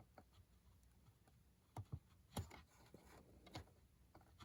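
A few faint, scattered clicks and taps of fingernails working a small wire connector loose on a radio-control transmitter's circuit board.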